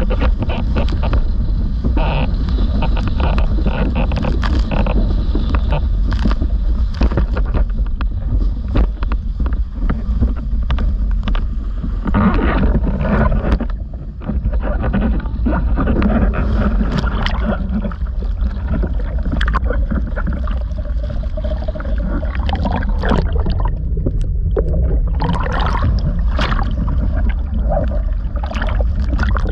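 Windsurf board running fast over choppy water, the hull hissing and slapping through the chop with spray splashing, under heavy wind rumble on the microphone.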